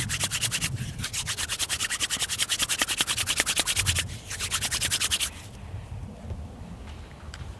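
Bare palms rubbing together briskly in fast, even back-and-forth strokes, working in the fat used to oil a beach-pebble axe puck. The rubbing stops about five seconds in, leaving quieter handling.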